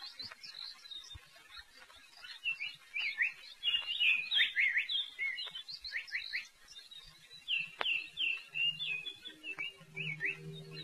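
Small birds chirping and twittering, many short high calls overlapping in quick runs. A low steady hum with a few held notes comes in near the end.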